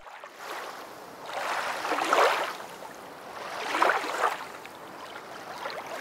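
Rushing, splashing water, laid under the end card as a sound effect. It swells twice, about two seconds in and again about four seconds in.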